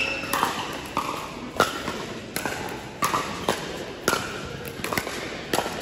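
Pickleball paddles striking a hard plastic pickleball in a rally, a string of sharp pops coming roughly every half second to a second.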